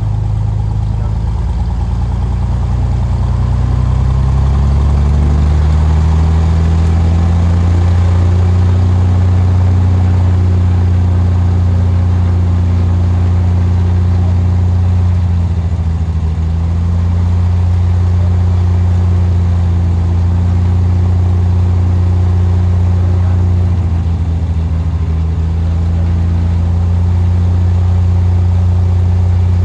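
Single piston aircraft engine and propeller of a Cessna RG, heard from the cockpit: its note rises over the first few seconds as power comes up, then runs steadily at a higher setting, with brief small dips later on.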